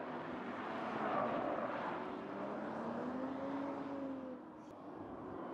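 Toyota GR Supra sports car driven hard on a circuit, its engine running under load with the pitch rising over a couple of seconds, then dropping away briefly as the car pulls off through the corner.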